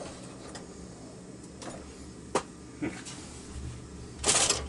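Metal lock picks and small tools being rummaged through in a pick case: a few light clicks, then a short clattering rattle near the end.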